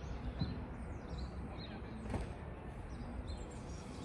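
Quiet outdoor background of low rumble with faint bird chirps now and then. There is a soft knock about two seconds in as the chimney collar is handled and pressed down onto its sealant.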